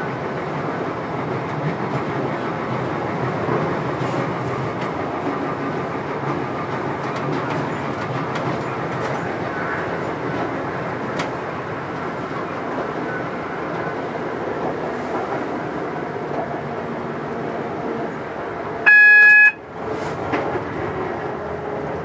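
Electric train running along the track, heard from inside the driver's cab, a steady rumble with faint wheel clicks. Near the end the train's horn sounds once, a short loud blast of under a second.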